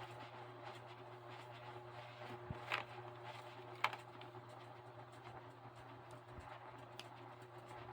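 Faint steady room hum with a few short, sharp clicks of plastic building bricks being handled and pressed together, three or so spread over several seconds.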